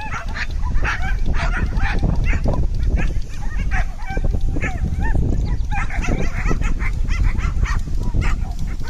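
Dog barking and yipping excitedly over and over, several short barks a second with brief pauses.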